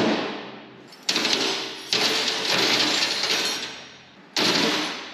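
Loose metal hand tools clattering and rattling in several sudden bursts that fade out, as they are taken out of a steel toolbox drawer and put down on a workbench.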